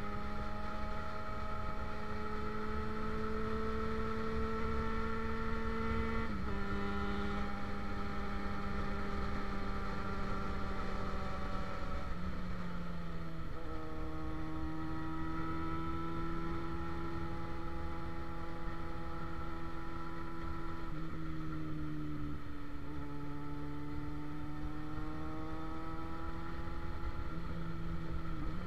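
Motorcycle engine running steadily while riding, with wind rumble on the microphone. Its pitch steps down several times and climbs again near the end as the revs change.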